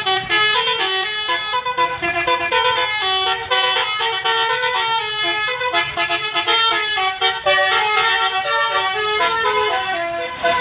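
Basuri telolet musical air horn on a bus playing a quick tune: a continuous run of short horn notes stepping up and down in pitch.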